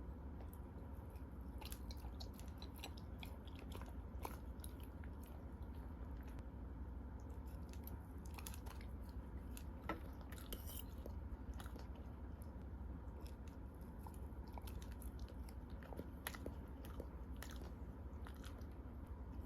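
A Jindo dog chewing and biting its food, with irregular crunches and mouth clicks, over a steady low hum.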